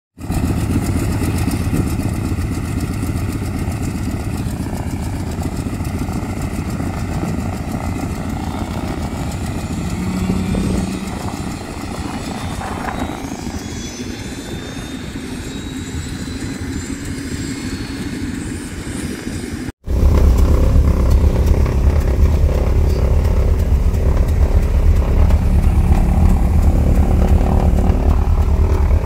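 Twin radial engines of a 1952 Beech 18 running steadily as it taxis, heard from outside, with a faint rising whine in the middle. About two-thirds of the way through, the sound cuts abruptly to inside the cockpit, where the engines are a louder, deeper steady drone.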